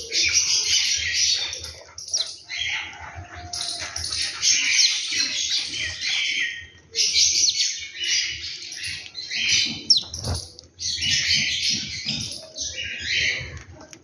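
A flock of house sparrows chirping and chattering, in dense bursts a second or two long with short breaks between them. A single sharp click about ten seconds in.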